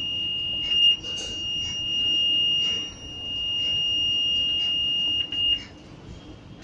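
Garland grill control panel's electronic buzzer sounding one steady high-pitched alert tone while the grill is in its clean mode. The tone dips briefly a couple of times and cuts off about five and a half seconds in, with a few short clicks along the way.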